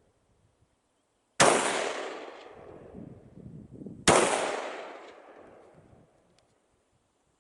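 Two rifle shots about two and a half seconds apart, each sharp crack followed by a long rolling echo that fades over a couple of seconds.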